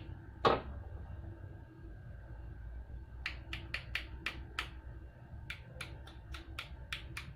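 Light, sharp metallic clicks from a motorcycle cam chain tensioner being put back together, its cap being refitted: one click early, then two quick runs of clicks at about three a second.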